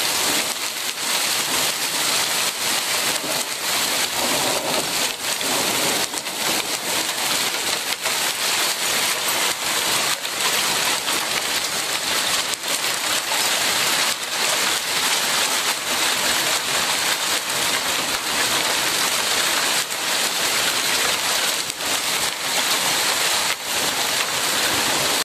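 Small hail pelting a wooden deck: a steady, dense hiss made of countless tiny ticks of hailstones striking.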